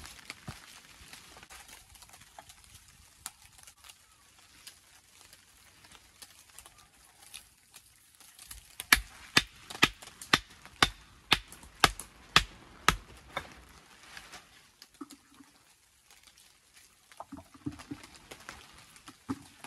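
Hammer striking stone: a run of about ten sharp knocks, about two a second, as a stone is dressed, with lighter clicks of stones being handled before and after.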